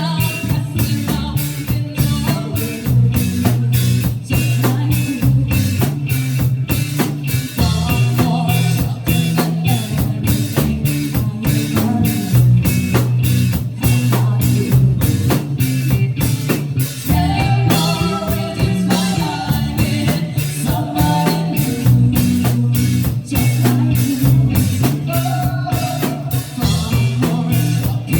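Live band playing a song: a busy drum kit with steady bass drum and snare hits drives it, under strong bass notes and a singing voice.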